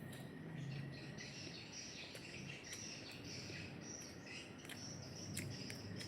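Birds and insects chirping in the background, with scattered short clicks throughout.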